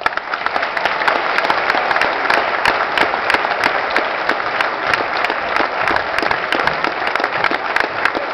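Audience applauding: many people clapping together, steady and loud.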